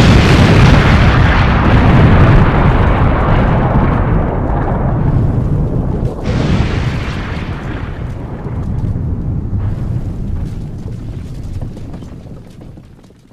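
Explosion sound effect: a loud blast followed by a long rumble that slowly dies away. A second, smaller blast comes about six seconds in, and the sound fades out near the end.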